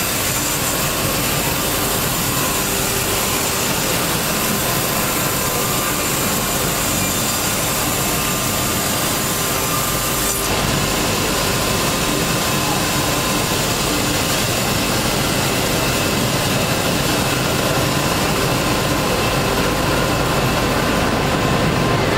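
Wood sawmill running and sawing, a steady dense mechanical noise with several held whining tones. A sharp click comes about ten seconds in, after which it runs slightly louder.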